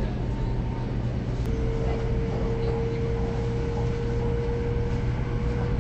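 Passenger train running, heard inside the carriage: a steady low rumble and hum. A thin steady higher tone joins about a second and a half in and holds.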